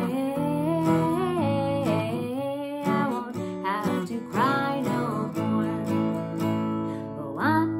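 A woman singing while strumming an acoustic guitar. In the second half the voice drops out for a couple of seconds while the guitar carries on.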